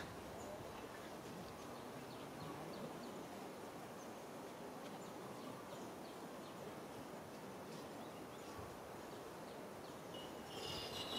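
Outdoor ambience: a steady background hiss with faint, short high chirps scattered throughout, and a high steady buzz that starts up near the end.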